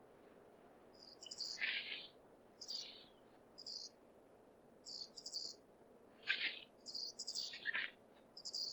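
Ezo flying squirrel (Pteromys volans orii) giving high squeaking calls, the male's breeding-season call to attract a female, here played back at half the original pitch. About seven short bursts of squeaks, some sliding sharply downward in pitch.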